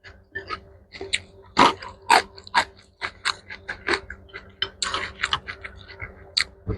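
Close-miked chewing of mixed rice with kimchi: wet, crunchy mouth sounds in a quick, irregular run of sharp clicks, several a second.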